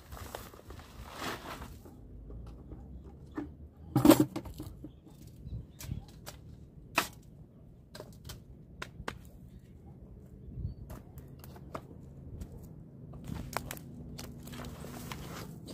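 Soil pouring and rustling out of a tipped bucket into a raised bed, then a single loud knock about four seconds in. Scattered small clicks and knocks follow as the soil is spread and handled.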